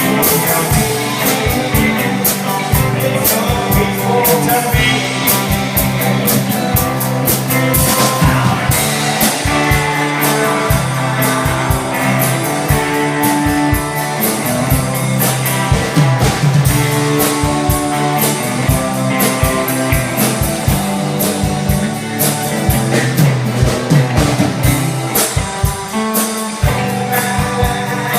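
A live rock band playing during a sound check: electric guitar over a drum kit, running continuously.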